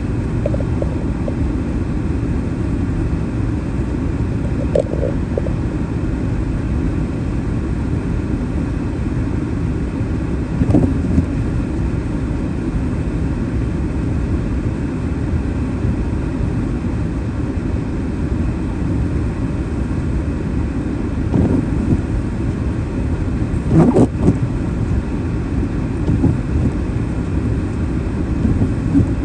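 Car driving on a snowy road: a steady low rumble of tyres and engine, broken by a few short knocks, the loudest about 24 seconds in.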